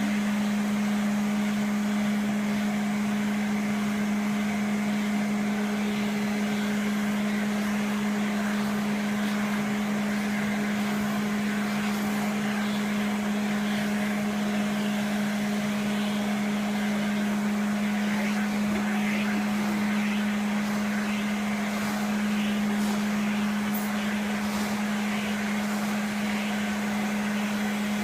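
Vacuum cleaner running steadily with a constant hum, its nozzle worked over a cat's fur.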